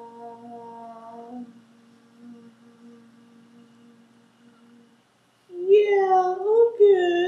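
A woman humming one long steady note that fades away, then a louder sung phrase with rising and falling pitch near the end.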